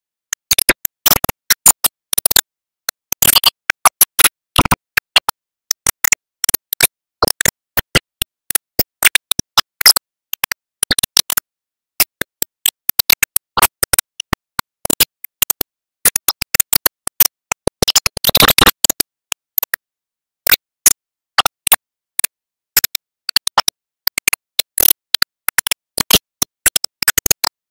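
Irregular sharp clicks and crackles, some in quick clusters, with dead silence between them and no steady tone; the crackle is densest about eighteen seconds in.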